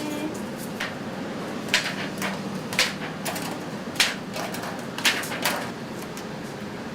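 Kitchen clatter: about five sharp clacks and knocks at uneven intervals over a steady background hum.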